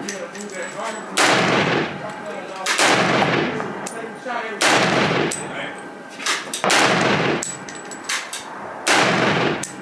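.308 AR pistol firing five single shots, roughly one every two seconds, each loud report trailing off in a long echo.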